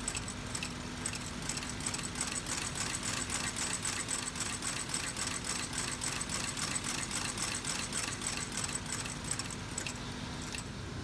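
Landis K sewing machine stitching a leather sole onto a cowboy boot: a rapid, even clatter of stitches over a steady motor hum, stopping just before the end.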